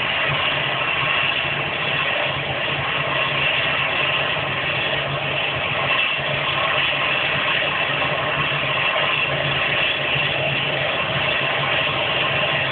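Twin-engine jet airliner's engines running steadily at idle taxi power, a constant whine over a low hum.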